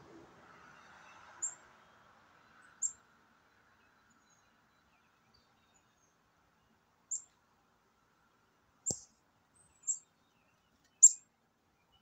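Chickadee's high, thin call notes: six short, separate chirps at irregular gaps of one to four seconds, the last the loudest. A sharp click comes with the chirp about nine seconds in.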